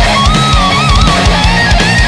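Heavy metal band playing: an electric guitar lead holds bent notes with vibrato over distorted rhythm guitar, bass and drums.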